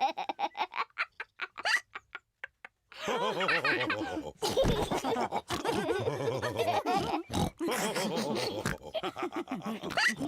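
Quick repeated gulping of juice, then a short pause. Then cartoon pig voices break into a long stretch of laughing and snorting, with a few short sharp sounds in it.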